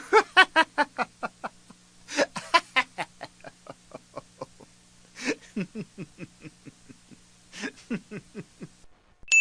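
A long bout of laughter: rapid "ha-ha-ha" pulses that slow down, broken by a few gasping breaths. A bell-like ding starts right at the end.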